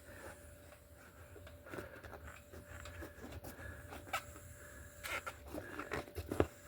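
Faint scattered clicks and rubbing from hands working a bicycle tyre, tube and rim, becoming more frequent in the second half.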